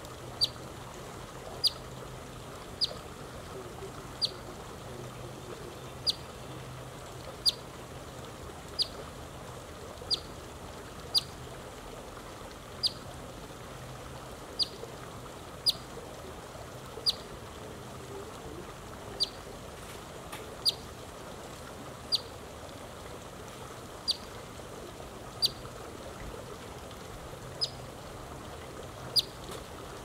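Eastern phoebe giving a sharp chip call over and over, about one every second and a half, each a short note that drops slightly in pitch: the call of an adult carrying an insect for its young. A faint steady hum runs underneath.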